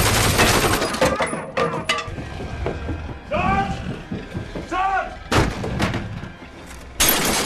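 Action-film sound effects. A loud burst of gunfire opens, followed by a few sharp knocks. Two short cries that rise and fall in pitch come in the middle, then a sharp bang, and a loud crash sets in near the end.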